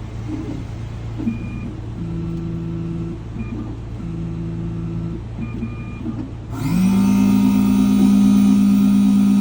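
Electric key-cutting machine at work: two short runs of motor whirring, then about two-thirds of the way in its motor spins up with a rising whine and runs on steadily and loudly.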